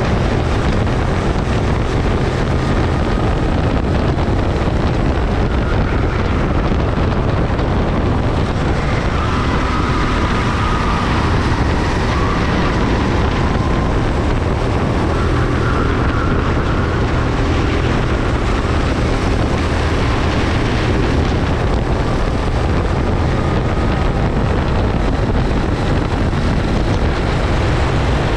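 Go-kart engines running at racing speed under heavy wind noise on the microphone, with a faint engine whine that rises and falls now and then.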